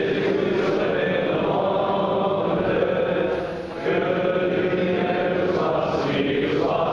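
A group of voices singing together in unison, holding long notes, with a short break about four seconds in.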